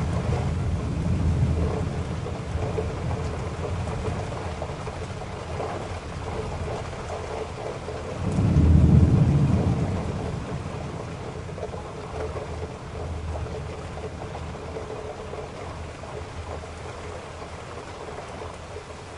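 Rain and tyre noise from a car driving on a wet road. A deep rumble swells about eight seconds in and fades over a couple of seconds.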